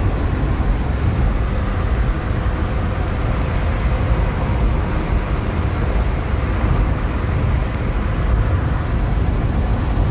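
A car driving along, heard from inside the cabin: a steady low rumble of engine and road noise that runs on evenly.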